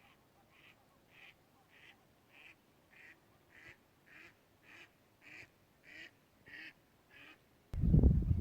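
A lake bird, duck-like, calling over and over in short, evenly spaced calls, about one every 0.6 s. Near the end a loud rough rushing noise suddenly cuts in and drowns the calls.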